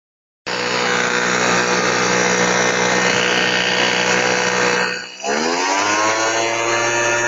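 Electric blower motor running steadily at speed, blowing through a hose. About five seconds in it drops out for a moment, then spins back up with a rising whine that levels off.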